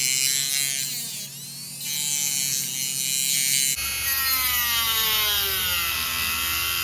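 Dremel rotary tool grinding a channel into a bicycle rear shifter, its high motor whine sagging and recovering in pitch as the cut loads it.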